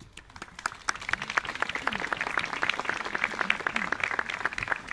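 A small crowd applauding: many hands clapping in a dense, continuous patter.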